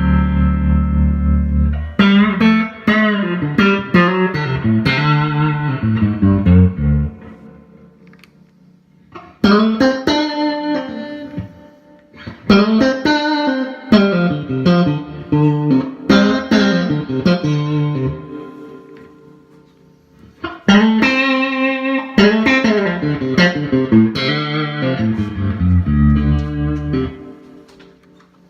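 A G&L Strat-style electric guitar played through a Fender Vibroverb amp, with picked chords and single notes left ringing. It comes in four short passages with pauses between them, played to show off the tones of different pickup selector switch positions.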